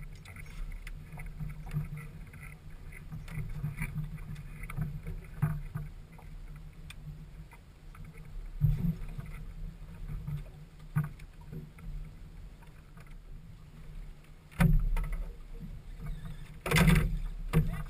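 A boat under way on the water: a steady low drone with water and hull noise, and a few louder thumps about fifteen and seventeen seconds in.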